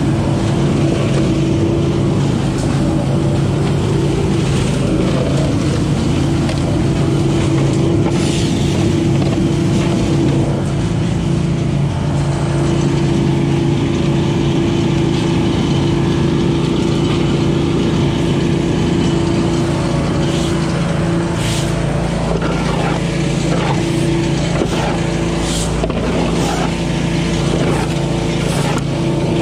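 Billy Goat walk-behind leaf vacuum running steadily at full throttle as it is pushed through leaves. Scattered clicks and rattles join in over the second half.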